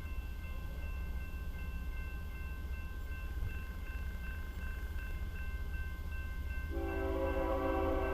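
Grade-crossing bell ringing rapidly and evenly over a low rumble of the approaching diesel locomotive; about seven seconds in, the locomotive's air horn starts sounding a loud multi-note chord and holds it.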